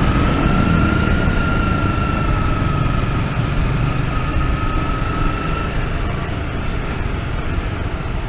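Motorcycle riding along at a steady pace: engine running under a low rumble with a steady hiss of wind and road noise. A faint thin whine runs alongside and fades out about six seconds in.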